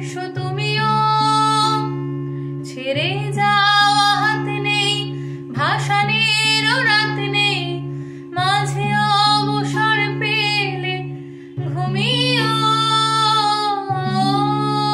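A woman singing in several long phrases with vibrato, each sliding up into a held note, accompanied by an acoustic guitar.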